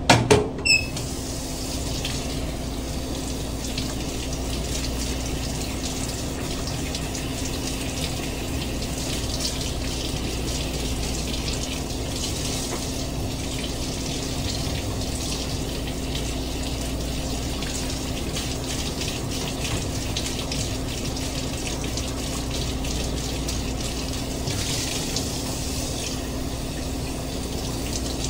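Kitchen sink faucet running, the water splashing and changing as a whole Japanese sea bream is rinsed and rubbed under the stream by hand. A few loud knocks come right at the start.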